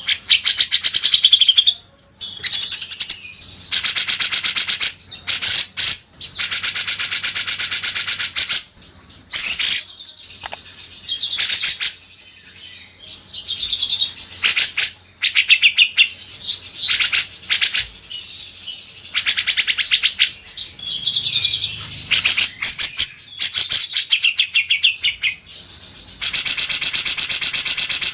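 Birdsong of a cucak jenggot (grey-cheeked bulbul) and a kinoi: bursts of very fast, rattling trills lasting one to two and a half seconds, alternating with short whistled phrases and brief pauses.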